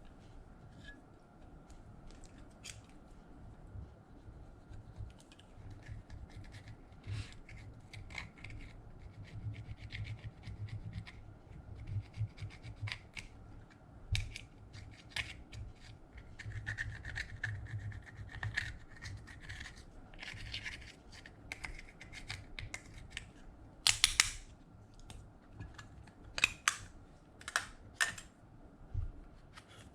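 Slime being mixed and worked with glitter, giving irregular sticky clicks, pops and crackly scraping sounds, with a few louder pops near the end.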